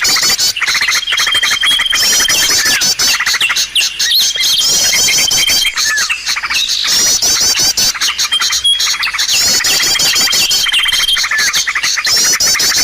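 A bird-luring (pikat) recording of many small songbirds chirping and trilling, with rapid twittering and a held high whistle that come round again every few seconds. The mix of calls is meant to draw wild birds in.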